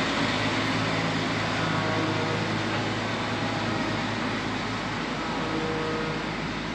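Heavy farm machinery engine running steadily, a continuous low hum under a dense mechanical noise.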